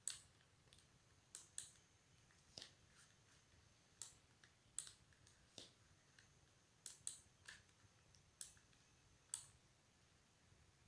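Computer clicks: about a dozen faint, sharp clicks at irregular intervals, some in quick pairs, as on-screen text is selected and a font-size menu is opened.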